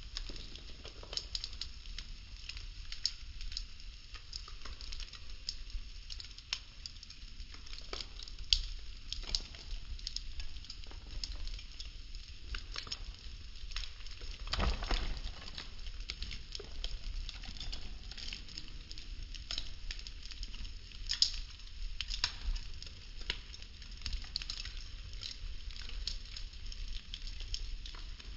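Popsicle-stick wood burning, with a steady hiss and irregular sharp crackles and pops. The loudest pops come about a third and halfway through, and again about three quarters of the way in.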